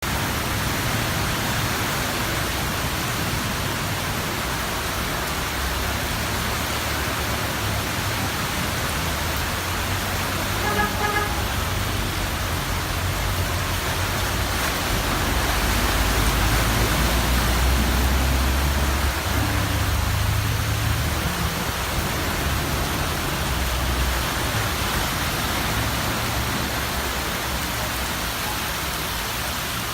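Steady hiss of rain and running water on a flooded city street, with motor traffic rumbling past, loudest around the middle. A car horn gives a brief toot about eleven seconds in.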